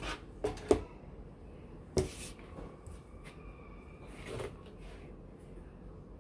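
Oracle cards being handled and laid down on a table: a few light taps, the loudest about two seconds in, and a soft brushing sound near the end.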